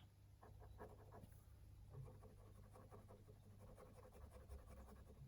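Faint scratching of a glitter gel pen scribbling in short strokes on paper; the pen is nearly out of ink.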